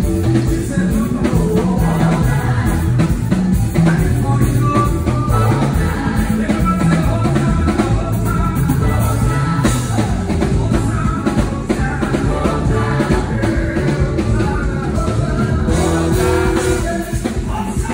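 Live gospel praise band playing, with a drum kit beating steadily under singing.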